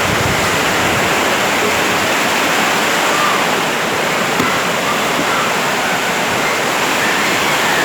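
Violent windstorm: a loud, steady rush of storm wind that holds unbroken throughout.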